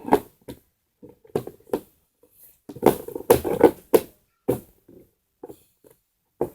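Plastic parts of a toy foot spa being handled and fitted together: a string of short, irregular clicks and rattles, busiest about three to four seconds in.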